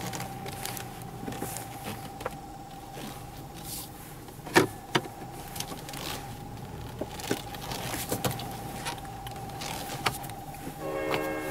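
Handling knocks and clicks inside a car cabin over a steady faint high tone, with a short horn blast near the end.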